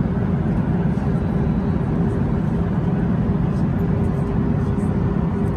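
Boeing 737-800 cabin noise in flight: a steady, loud low drone of airflow and engines with a faint constant hum.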